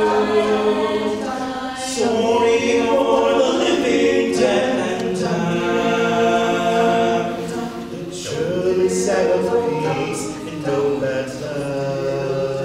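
Mixed a cappella group singing held chords, with a male solo voice at a microphone over the group, in phrases a few seconds long.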